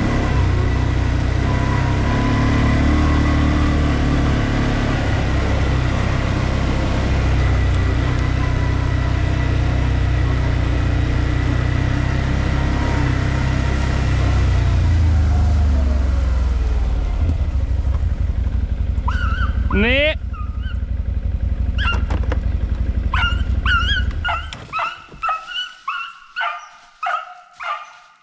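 ODES 650 ATV engine running on the trail, dropping off and shutting off about three quarters of the way through. From about two-thirds in, a Jagdterrier gives a rising whine and then breaks into quick repeated high yelps, about two a second, giving voice on the scent of game, which the rider takes for game that had crossed the track ahead.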